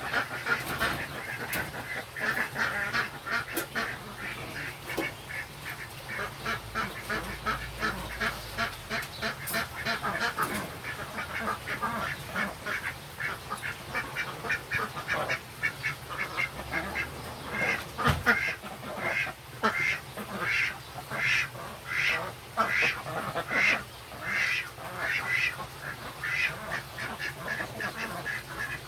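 Birds calling in a long series of short repeated calls, settling into about two calls a second in the second half.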